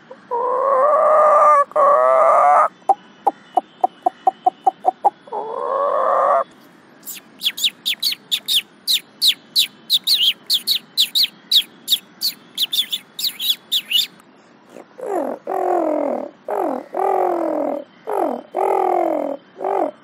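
A man imitating birds with his voice. First a hen's egg-laying cackle: a long call, a quick run of clucks, then another long call. Next a sparrow's rapid high chirping, then a pigeon's low, falling coos repeated several times.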